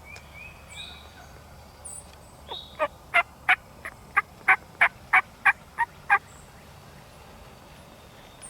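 A run of about a dozen turkey yelps, sharp and evenly spaced at about three a second, starting about three seconds in and stopping some three seconds later.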